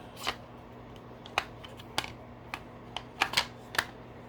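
Hard plastic parts of a G.I. Joe BUGG toy vehicle clicking and tapping as a clear plastic window piece is worked into place: a string of sharp clicks, several close together a little past three seconds in.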